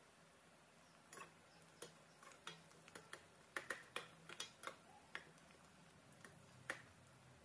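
Faint, irregular clicks and taps from a pan of sliced onions frying in oil being stirred with a perforated steel skimmer, with the clicks bunched together around the middle.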